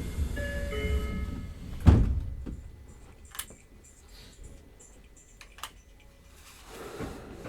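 Door-closing chime of a Tokyo Metro 05 series subway car, a repeated multi-note tone, ending about a second in. The sliding doors then shut with a heavy thud about two seconds in, followed by a few light clicks in the quieter cabin.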